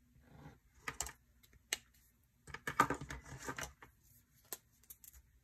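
Plastic gel pens clicking and clattering as they are picked up and set down, with a few single sharp clicks and a quick flurry of rattling clicks in the middle.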